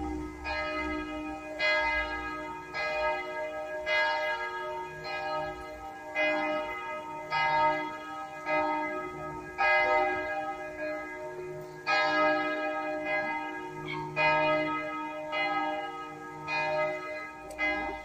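Church bells ringing for the six o'clock evening bells. Several bells strike in turn about once a second, and each strike rings on into the next, so the notes overlap in a continuous peal.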